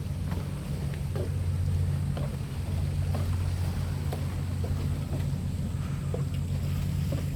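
A steady low mechanical drone, like a motor or engine running, with faint scattered ticks.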